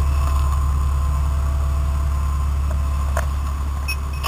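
Fire engine's diesel running steadily, a heavy low rumble with a faint whine above it, and a few light knocks of gear near the camera.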